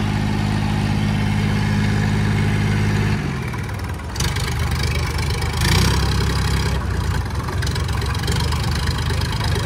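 Diesel engines of an Eicher 557 and a Sonalika 750 tractor running at high revs under heavy load as the two pull against each other in a tug-of-war. The engine note holds steady for about three seconds, then drops a little and turns rougher.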